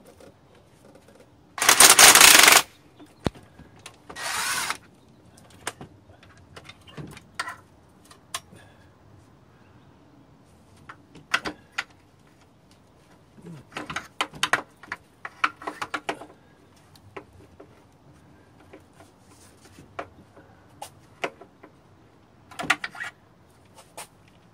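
Cordless power tool running in two short bursts, about two seconds in and again around four seconds, spinning off exhaust manifold nuts. The rest is scattered metallic clicks and clinks of the socket and tool on the nuts.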